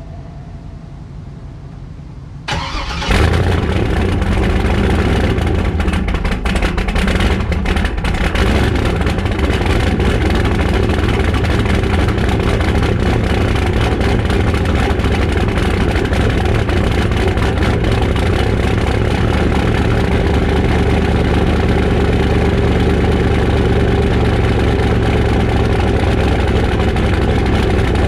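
A truck's LS V8 fitted with a BTR Stage 3 turbo cam and a fresh tune starts up about two and a half seconds in, then settles into a loud, steady idle.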